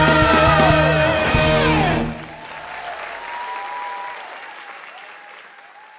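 Loud stage-musical music that cuts off about two seconds in, followed by audience applause that fades away.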